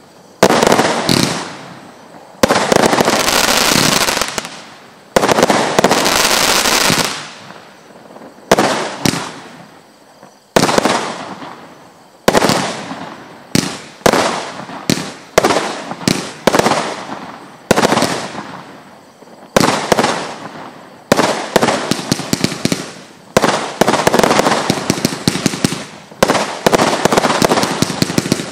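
A 192-shot, 20 mm compound firework battery (Lesli Hurricane Force) firing its salvos: a string of sharp shots and star bursts, each ringing out and fading. The shots come roughly once a second, and in the first seven seconds there are two longer stretches where they run together into a continuous rush.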